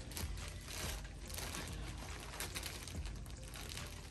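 Thin clear plastic bag crinkling and rustling in irregular bursts as a shoe is handled inside it and pulled out.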